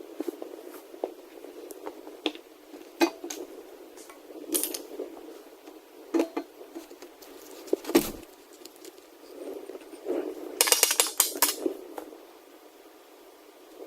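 Metal tools and parts clinking and knocking while being handled. A quick run of rattling clinks comes about ten and a half seconds in.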